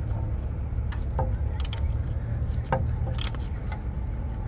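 Ratchet wrench tightening the mounting bolt of a new serpentine belt tensioner: short metallic clicks and clinks about once a second, over a steady low hum.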